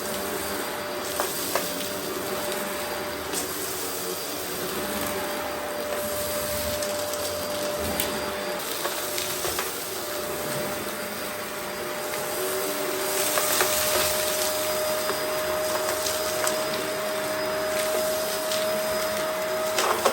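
Vacmaster Respira vacuum cleaner running with a steady motor whine over a rush of air, with scattered clicks and rattles of debris being sucked up. It gets louder for a couple of seconds around the middle. The motor sounds healthy, with suction restored after the shroud blockage was cleared.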